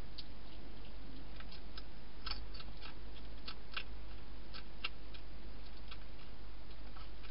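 European hedgehog eating inside a plastic feeding box: irregular sharp crunching clicks of its chewing, in clusters of several a second, over a steady low hum.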